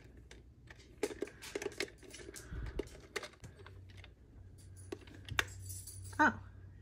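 Scattered clicks and light taps of a metal twin-bell alarm clock being handled and turned over in the hands, with a brief falling squeak near the end.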